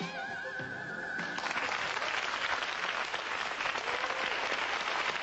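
Studio audience applauding as a song finishes: the song's last held high note wavers, then steadies and stops about a second and a half in, and clapping fills the rest.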